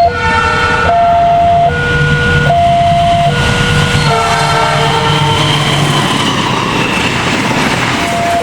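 Indonesian diesel locomotive horn giving a semboyan 35 signal in a two-note pattern, a high note and a low note taking turns about every 0.8 s, ending in a brief chord of several notes. The horn then gives way to a passing train's rumble and rushing noise, with a high tone slowly falling in pitch. The horn starts again near the end.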